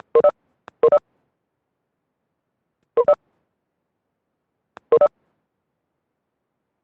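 Short electronic double beeps, four pairs in about five seconds, each a quick pair of steady multi-tone pulses, some with a faint click just before.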